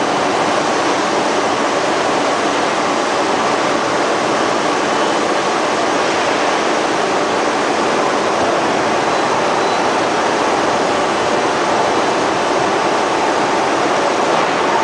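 Steady, unbroken roar of heavy industrial machinery noise, with no distinct hammer blows standing out.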